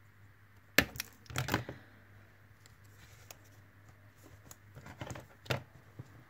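Scissors snip through thin, soft craft wire with one sharp click a little under a second in. Then come short knocks and rustles as the scissors are set down and the wire and a pair of pliers are handled on a cutting mat.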